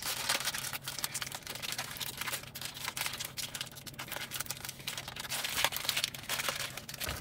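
Plastic Mentos packet crinkling as it is picked and torn open by hand: a dense, irregular run of small crackles, with a faint steady low hum underneath.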